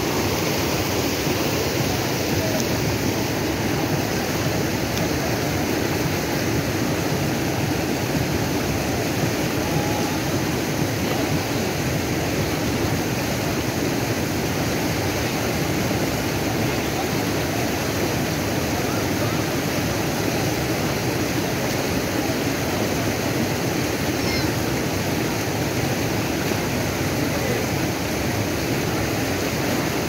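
Shallow mountain stream rushing steadily over rocks and small rapids.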